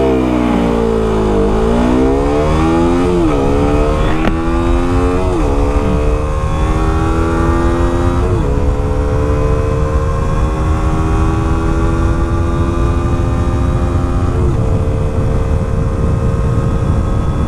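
KTM RC 125's single-cylinder 125 cc four-stroke engine accelerating at full throttle from a standstill. The note sags as the clutch takes up, then climbs in pitch through the gears, dipping briefly at four upshifts. The climbs get longer with each higher gear.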